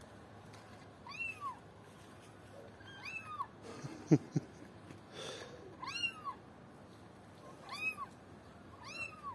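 Short high-pitched meows of a kitten-like cry, five in all, repeated every second and a half to two seconds, each rising and then falling in pitch. Two sharp knocks about four seconds in.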